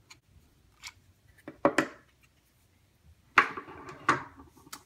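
Clicks and sharp knocks of hard plastic and metal as a weapon light is unclipped from a Glock 19's accessory rail and set down on a tabletop: a few small clicks, two sharp knocks about a second and a half in, and louder knocks about three and a half and four seconds in.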